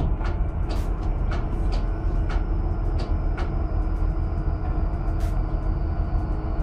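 Steady deep rumble of a fishing trawler's engines and deck machinery, with scattered sharp knocks and clanks as the trawl net is hauled up the stern ramp through washing waves.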